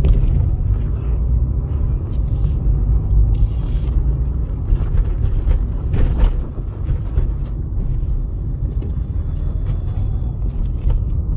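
Maruti Suzuki Baleno driving on a road test, a steady low road and engine rumble, with one sharper knock about six seconds in.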